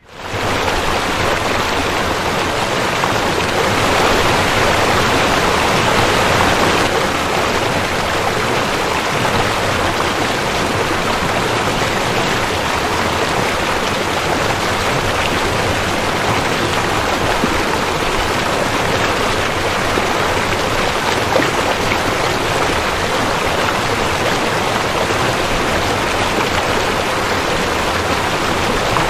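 Steady rush of a river flowing over a gravel bar, fading in at the start and swelling slightly a few seconds in.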